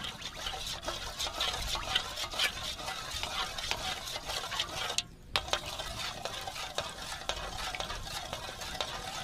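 Cooking oil crackling and sizzling in a pan as it heats up, a dense run of small pops with a short break about five seconds in.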